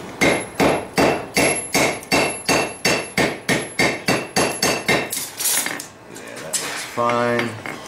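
Hand hammer striking a red-hot split railroad spike on the horn of an anvil: about a dozen steady blows, roughly two and a half a second, each with a bright metallic ring. The blows stop about five seconds in.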